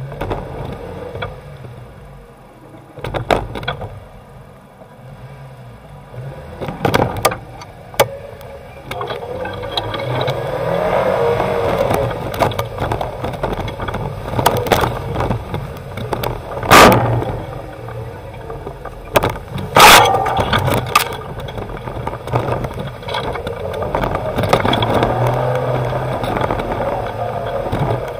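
Off-road 4x4's engine running and revving as it drives along a snowy, rutted track, with scattered knocks and bangs from the vehicle, two of them loud past the middle.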